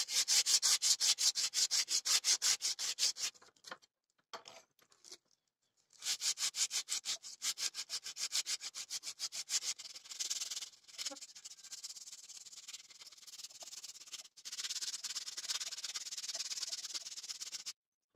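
Sandpaper rubbed by hand back and forth along a wooden knife handle in quick strokes, about five or six a second. There is a pause of a couple of seconds early on, and near the end the strokes run together into a steadier rasp.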